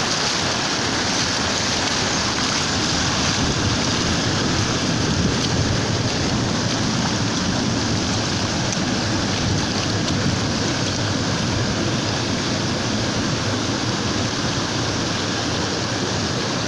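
Floodwater from an overflowing lagoon running steadily across a flooded road, a continuous rushing.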